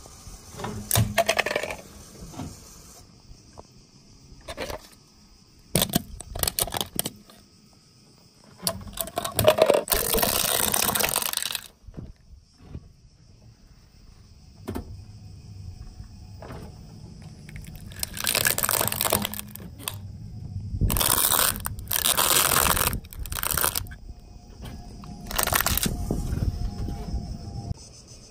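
Car tyre rolling over and crushing a plastic toy water gun: the hard plastic cracks and crunches in several separate bursts, the longest lasting a couple of seconds. A low rumble from the car runs under the later crushes.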